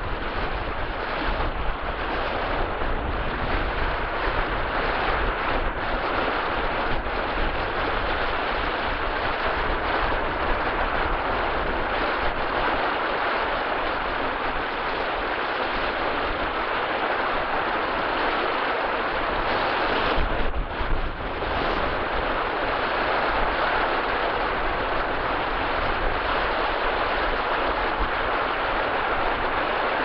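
Sea surf breaking offshore and washing up a shallow sandy beach in a steady, continuous rush, with wind rumbling on the microphone underneath.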